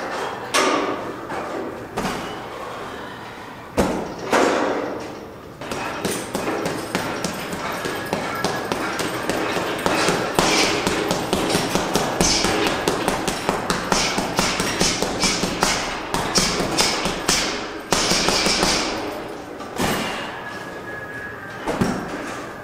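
Gym weights clanking and thudding: a few separate knocks, then a long run of rapid, repeated metal knocks and clicks, then a few single knocks again near the end.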